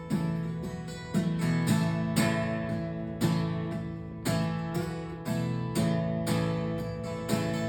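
Acoustic guitar strummed in a steady rhythm, the instrumental intro of a country song before the singing starts.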